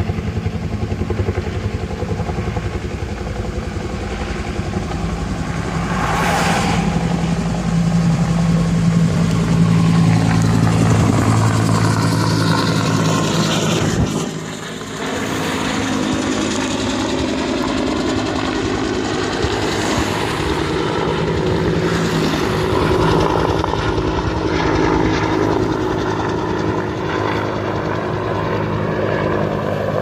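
Firefighting helicopter carrying a water bucket on a long line, its rotor and turbine engine droning steadily. The drone swells to its loudest about a third of the way in, dips briefly near halfway, then holds steady.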